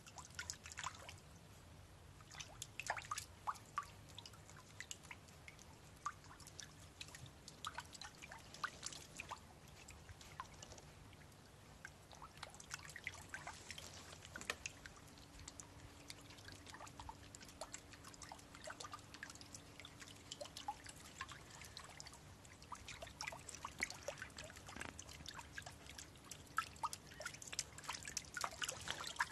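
Faint, irregular light splashes and drips of shallow paddling-pool water as a dachshund's paws paddle in it.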